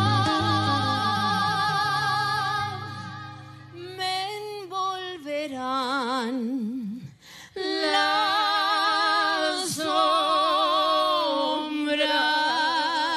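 Two women singing in duet, holding long notes with wide vibrato. A low accompaniment drops away about three seconds in and the voices carry on nearly alone, with a short break about seven seconds in.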